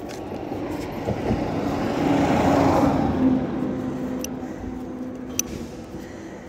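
A road vehicle passing, its engine and tyre noise swelling to a peak about halfway through and then fading away. Two sharp clicks sound in the second half.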